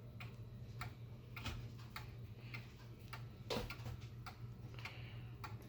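Movement of an early-1900s Japanese regulator wall clock ticking faintly and steadily as its escapement lets the pendulum swing.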